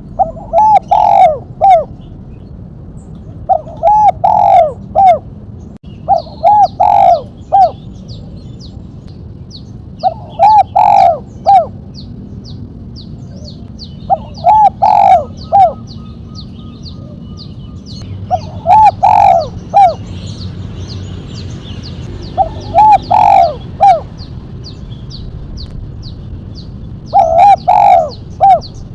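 Spotted dove (tekukur) singing its 'mercik' coo with a single sharp 'kuk': a phrase of three or four cooing notes, repeated eight times every three to four seconds. From about twelve seconds in, a fast, faint high ticking runs under it.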